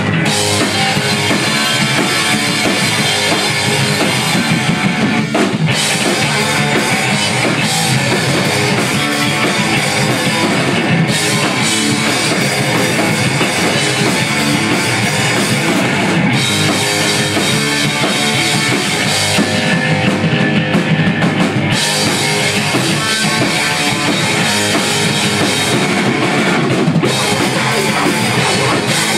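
Live hardcore band playing loud and without a break: pounding drum kit with distorted electric guitars and bass.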